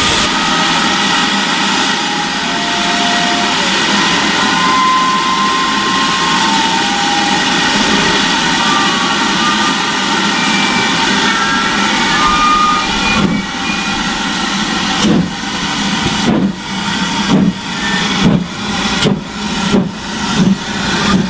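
GWR 4575-class small prairie tank locomotive 5542 hissing steam steadily, then starting away about thirteen seconds in. Its exhaust beats come slowly at first and quicken as it gathers speed.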